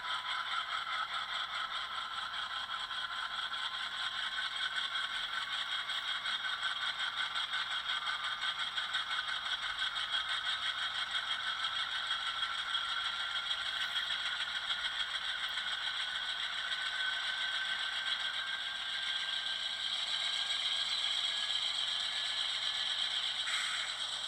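LokSound 5 sound decoder playing the GE Dash 8-40CW's diesel engine sound through the HO scale model's small speaker, notching up toward full throttle (notch 8): a rattly engine sound with a whine that rises slowly in pitch.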